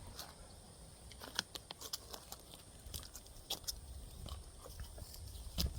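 Footsteps crunching through dry leaf litter and twigs, with irregular crackles and snaps.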